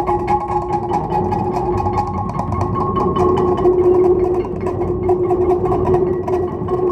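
Serpentine stone plates resting on a bass drum, kept sounding a steady ringing tone with higher overtones over a dense, fast rattling texture and a low rumble.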